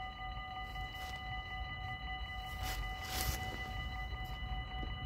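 Low wind rumble on the microphone, with a faint steady whine of several fixed high tones, and a brief hiss about three seconds in.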